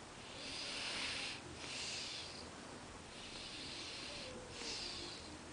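A sleeping person snoring, with hissy, breathy in-and-out breaths about one a second.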